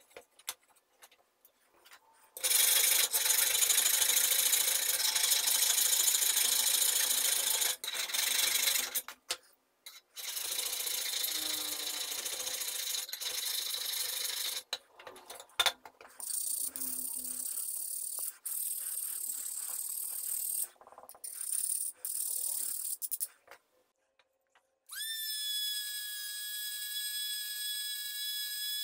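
Hand file rasping across the steel of a chisel blade in long stretches with short pauses. About 25 s in, a handheld rotary tool with an aluminum oxide grinding stone whines up to speed and runs with a steady high-pitched whine as it grinds the chisel.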